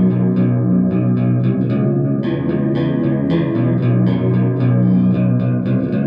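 Electric guitar strummed through a DIY Small Clone-style analog chorus pedal, with a Tube Screamer overdrive on, into an Orange Micro Dark amp and Marshall cabinet. The chords are re-struck about three times a second and ring on, with a shimmering chorus.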